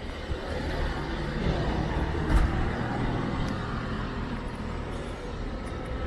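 A car driving past on an asphalt street: the tyre and engine noise swells, is loudest about two and a half seconds in, then fades as the car moves off.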